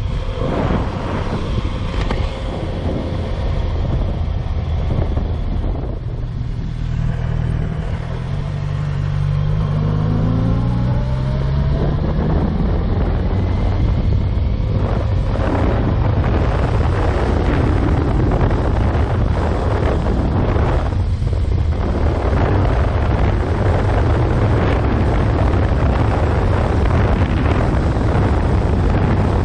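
Motorcycle engine, a 2015 Yamaha FZ6R's 600cc inline-four, running under way, rising in pitch as it pulls up through the revs about a third of the way in, with brief dips twice later on. Wind rushes over the microphone throughout.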